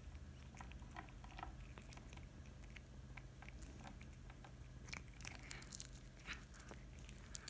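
A cat chewing food close up: faint, irregular small clicks of chewing, one sharper click about two seconds in and a denser run from about five seconds in, over a low steady hum.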